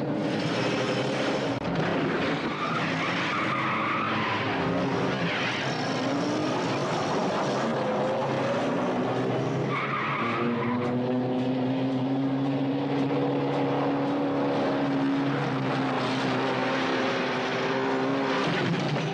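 Car-chase soundtrack: engines revving up and down in pitch, with tyres squealing a few times.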